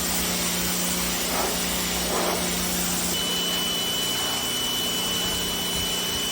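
Pressure washer running, its spray and pump making a steady hiss with a low hum. About three seconds in, a high steady whine joins.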